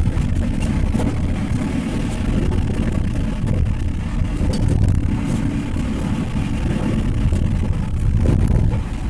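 Steady low rumble of a vehicle's engine and tyres driving slowly along an unpaved road.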